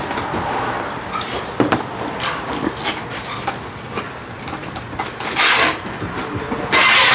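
Objects being handled: scattered knocks and light clatter, with two short rustling hisses in the last two seconds.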